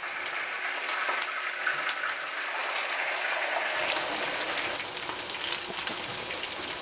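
Whole snapper frying in hot oil in a cast-iron skillet: steady sizzling with scattered crackling pops of oil.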